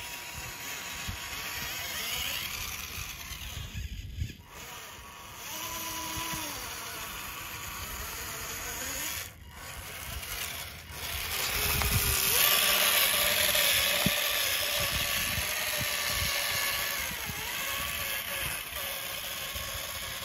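Small electric drive motor and gearbox of a homemade remote-control Swaraj tractor model whining as it runs, the pitch rising and falling as it changes speed; it gets louder a little past halfway.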